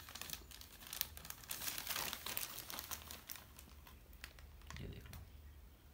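Thin clear plastic bag crinkling as it is handled and folded shut around button mushrooms, the crinkles thinning out in the second half.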